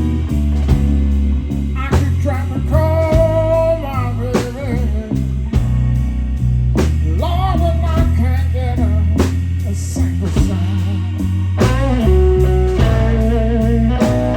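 Live blues band playing a slow blues: an electric guitar lead with bent notes over a bass line and a steady beat.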